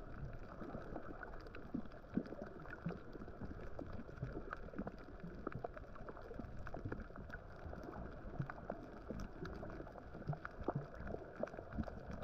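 Water sloshing and splashing in small irregular spatters over a low steady rumble.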